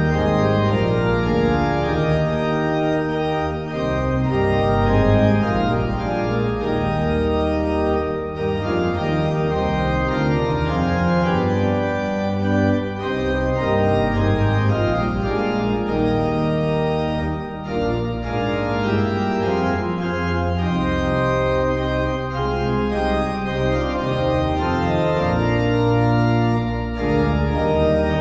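Organ music playing sustained, slowly changing chords over a moving bass line.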